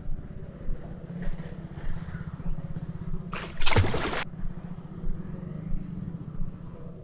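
A short splash of something moving in the water, a little past halfway, which the listener suspects may be an otter. Insects keep up a steady high drone behind it.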